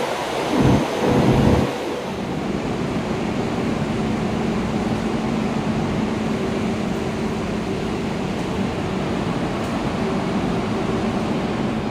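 A high-speed train rushing through an underground station, its rumble peaking in two loud low gusts about half a second and a second in. Then comes a steady, even hum with a low droning tone from a CRH2A high-speed train at the platform.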